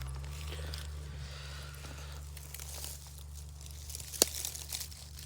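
Rustling and crunching, like dry leaves or brush being disturbed, with one sharp click about four seconds in.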